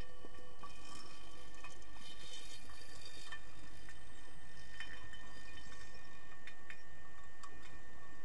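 Underwater pool sound picked up by a submerged camera: scattered sharp clicks and taps over a few faint steady tones, with a hiss of bubbles and splashing from about half a second in to about three seconds in.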